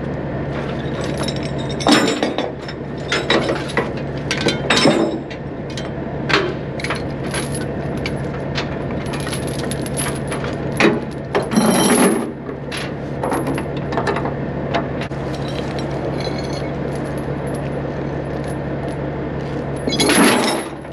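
Steel tie-down chains clinking and clanking in irregular strikes as they are handled, over a steady engine hum.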